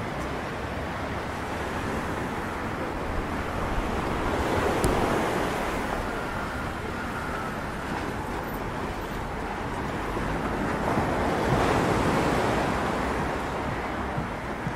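Sea waves washing against the shore and seawall, surging louder twice, with wind buffeting the microphone.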